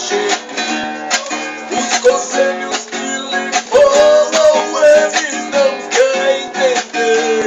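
Music: a strummed guitar keeping a steady rhythm, with a pitched melody line over it and no sung words.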